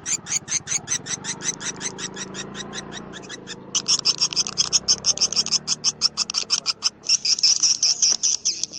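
Swiftlet calling-sound recording: rapid high clicking chirps at about ten a second, fading slightly, then after a brief pause about three and a half seconds in, louder dense chirping that runs into near-continuous twittering near the end.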